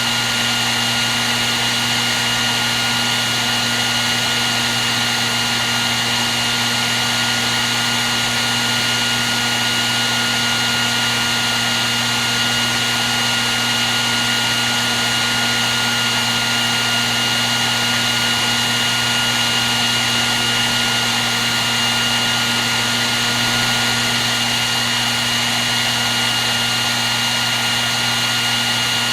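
Hair dryer running steadily at one setting: a constant rush of blown air with a steady high whine and a low hum from the motor.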